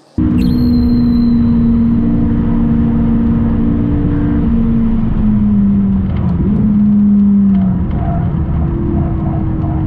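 McLaren 570S's twin-turbo V8 heard from inside the cabin, running hard on track over steady road noise. Its note steps in pitch several times, falling around the middle and near eight seconds in, then rising again near the end.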